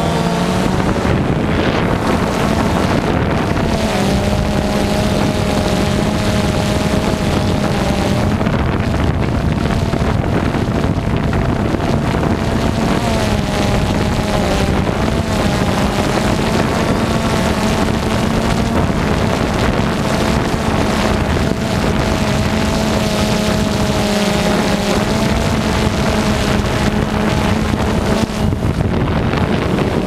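DJI Phantom 2 quadcopter's motors and propellers droning steadily, heard from the on-board GoPro, with the pitch wavering a little as the motors adjust. Wind buffets the microphone throughout.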